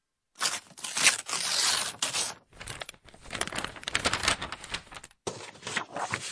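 Paper rustling and crinkling in irregular bursts with short pauses: a letter being opened and unfolded.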